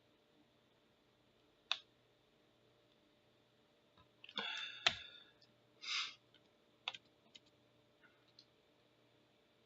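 Sparse computer mouse clicks and keyboard taps: single sharp clicks scattered through, with two brief soft noises around the middle.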